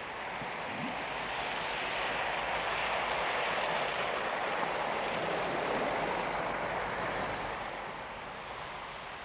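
A vehicle passing on a city street: a rushing tyre and road noise that swells over a few seconds and then fades away.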